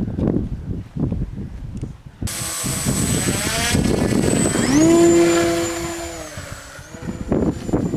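Gusts of wind on the microphone, then the electric motor and propeller of an RC model airplane spinning up with a rising whine, running steadily for a couple of seconds and winding back down.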